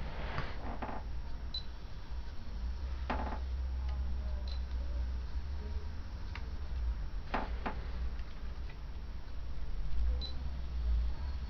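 Scattered clicks and taps from handling a partly disassembled, powered-on compact camera, with a faint short high pip about every three seconds.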